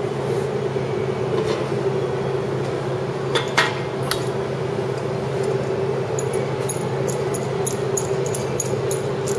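Metal clinks and knocks of a clamp being fitted to hold an aluminum snowmobile chaincase cover down: a few knocks about three and a half seconds in, then a quick run of light clicks near the end, over a steady low hum.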